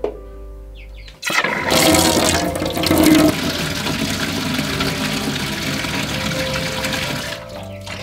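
Tap water gushing from a hose into a large metal basin, starting about a second in, loudest in the first couple of seconds as it hits the empty basin, then running steadily until it is cut back to a trickle near the end.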